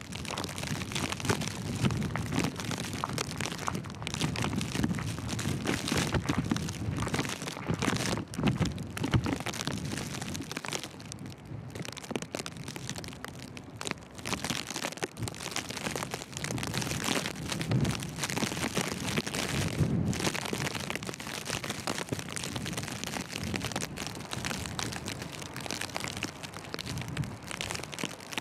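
Blizzard wind gusting over the microphone in low rumbling swells, with walking footsteps crunching in fresh snow.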